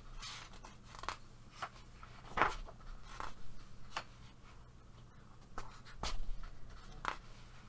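Paper pages of a paperback coloring book rustling and brushing under hands as a page is handled and turned, in short separate rustles and light taps. The loudest rustle comes about two and a half seconds in, and another cluster comes around six seconds in.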